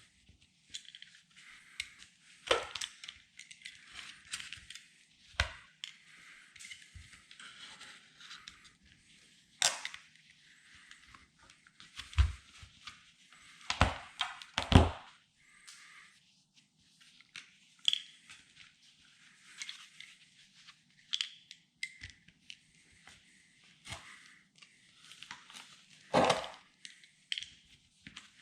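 Hand-tool work on the bus's body and trim: irregular sharp knocks and cracks, several louder ones around the middle and one near the end, with scraping and scratching in between.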